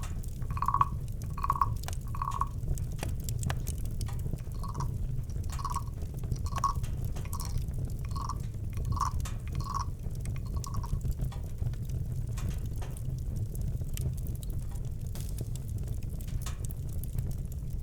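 Campfire crackling with scattered pops over a low rumble. During the first ten seconds or so a short, evenly repeated call sounds a little over once a second and fades out.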